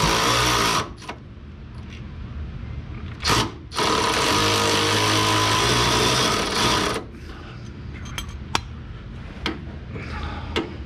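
A power tool running in two steady bursts, the first cutting off under a second in and the second lasting about three seconds from near the middle. Light clicks and taps of hand work on the car follow.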